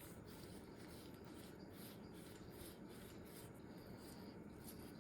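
Faint, irregular scratchy rubbing and handling of Glock pistol parts during cleaning.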